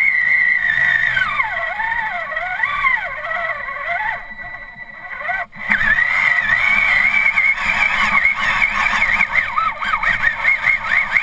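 Stock Traxxas Summit RC truck's brushed Titan 775 electric motor and geartrain whining as it drives through mud and water, the pitch rising and falling with the throttle. The whine sinks low and fades about four seconds in, a sharp click comes a moment later, then the whine returns high and warbles quickly.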